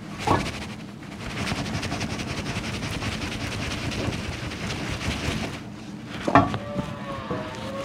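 Bronze propeller being worked off a tapered propeller shaft by hand: the hub scrapes and rattles on the shaft, then a sharp metal clunk about six seconds in sets the propeller ringing.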